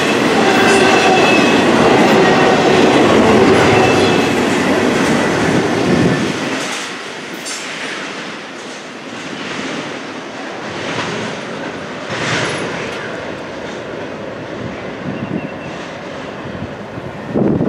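Double-stack intermodal container cars rolling past, with steady high squealing tones over the rumble for the first few seconds. About six seconds in, the noise drops as the end of the train passes and fades into the distance. Near the end a car approaches the crossing with a brief loud rush.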